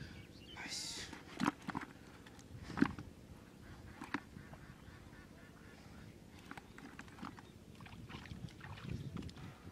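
Scattered knocks and rustling, with a short hiss about a second in, as a plastic bucket holding live eels is handled.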